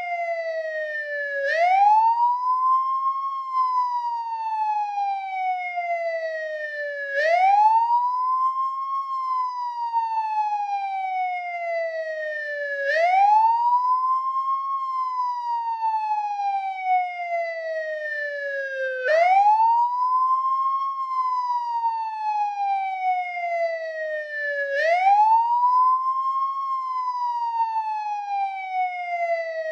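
American police car siren in wail mode: a single tone that climbs quickly, holds briefly, then falls slowly, repeating about every six seconds, five climbs in all.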